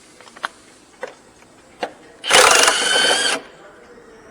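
A few metallic clicks as a socket on an extension is fitted to the engine mount fastener, then a loud burst of about a second from a power wrench spinning the 18 mm mount nut off.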